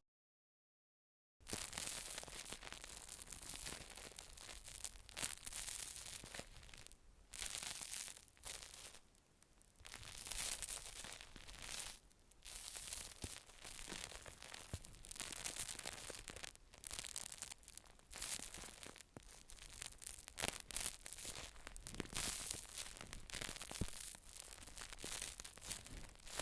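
Close-miked rustling and scratching sounds, continuous but swelling and dipping unevenly, after about a second and a half of dead silence at the start.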